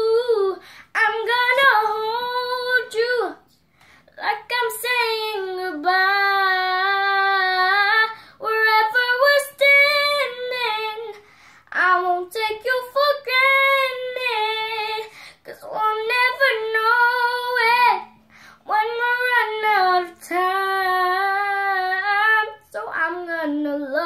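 A young girl singing unaccompanied, a cappella, in sustained melodic phrases of a few seconds each with short breaks between them.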